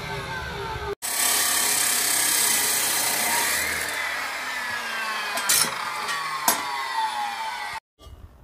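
Redstone metal cut-off chop saw cutting through square steel tubing: a loud, steady hiss of the disc in the metal with a whine that slides down in pitch. Two sharp clicks sound about five and a half and six and a half seconds in, and the cutting stops near the end.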